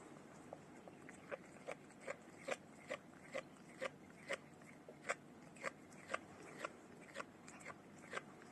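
A cat crunching dry food, a short sharp crunch about twice a second.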